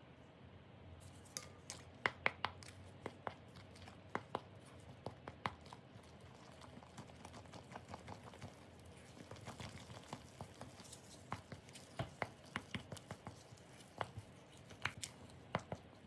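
Irregular light clicks and taps of kitchen utensils and dishes being handled while preparing rice-cake batter, over a steady air-conditioner hum.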